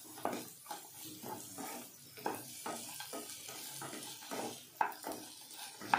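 Wooden spatula stirring and scraping chopped beans, carrots, cashews, peanuts and tomatoes in a nonstick kadai, about two strokes a second, over a light sizzle of the vegetables frying.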